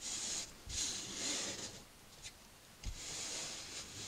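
Palms rubbing and smoothing muslin grille cloth onto a freshly glued accordion grille: a soft swishing in about three strokes, with a light knock about three seconds in.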